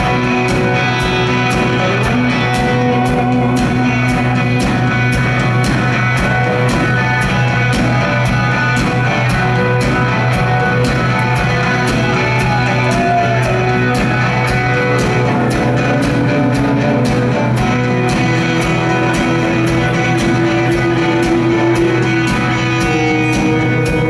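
Live rock band playing an instrumental passage: electric guitars and bass over a drum kit keeping a steady beat of about two hits a second.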